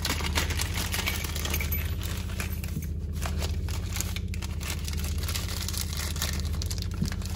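Plastic hardware bags crinkling and rustling as they are handled and opened, over a steady low hum.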